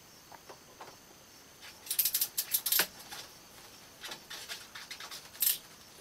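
Short clicks and scratches of hands working a hose onto a water heater's fitting. A quick flurry comes about two seconds in, with a few fainter ticks before it and one more near the end.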